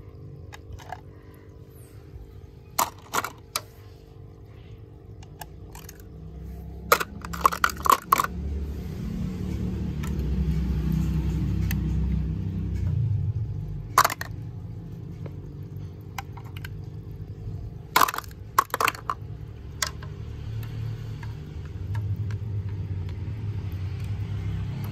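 Plastic toys and a plastic toy fishing rod knocking and clicking against each other and the tank, in scattered sharp knocks, some in quick clusters of two or three, over a low rumble that swells and fades.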